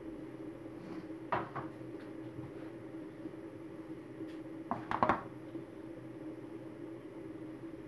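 Kitchenware knocking on a table over a steady low hum: a couple of light knocks about a second and a half in, then a louder clatter around five seconds in as a plastic food container is set down.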